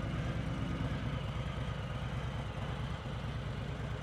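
Harley-Davidson Softail Slim's 107 cubic inch Milwaukee V-twin idling steadily through its shotgun-style exhaust, with an even low pulse.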